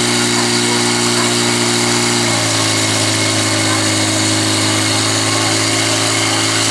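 Portable fire pump engine running hard and steadily, driving water through the attack hoses. Its pitch drops a step about two seconds in.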